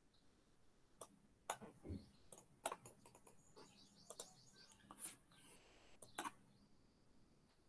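Scattered clicks and taps from a computer keyboard and mouse: about a dozen irregular strokes, some louder than others, over faint room hiss.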